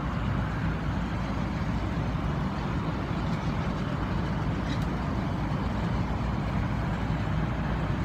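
Carrier rooftop package air-conditioning unit running under full refrigerant charge: a steady rush of air from the condenser fan over a low, even compressor hum.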